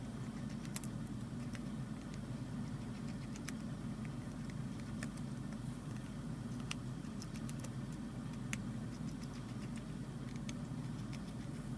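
Scattered light clicks and ticks of a precision screwdriver turning out the small screws of a smartphone's inner back cover, over a steady low hum.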